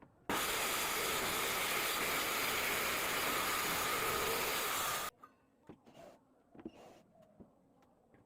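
Power saw cutting through plywood along a wooden guide track: a loud, steady cutting noise for about five seconds that starts and stops abruptly, followed by a few faint knocks.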